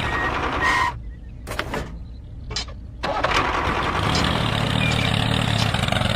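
Tractor engine running steadily. About a second in it drops out for about two seconds, leaving a few faint clicks, then runs again.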